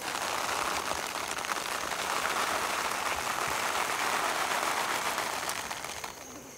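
Freshly picked capers poured into a wicker basket: a dense pattering rattle of many small buds landing on the pile, fading out near the end.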